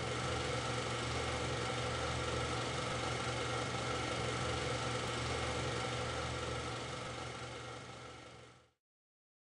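A steady low hum with several held tones, fading out about a second before the end.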